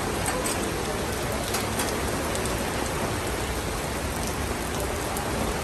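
Heavy rain pouring down in a steady, dense hiss, with a few sharp drop ticks in the first two seconds.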